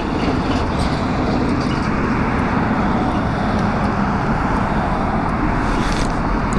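Steady road-traffic noise: a work truck towing a trailer and cars driving past close by.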